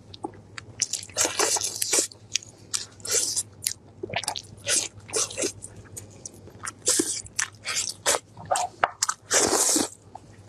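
Close-miked eating: meat being bitten off a bone of braised pork and chewed, with wet smacking and lip noises in irregular bursts. A faint steady low hum runs underneath.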